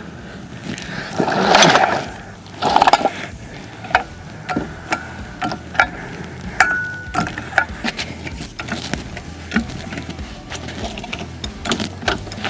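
A floor jack and tools being handled on gravel: two loud scraping crunches in the first three seconds, then a run of scattered metallic clicks and knocks, with a short squeak about seven seconds in.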